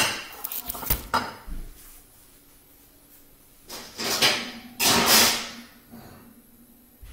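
A glass bowl set down with a sharp clack on a granite countertop, followed by a few light knocks. About four and five seconds in come two longer rolling slides as a dishwasher rack is pulled out and pushed back in.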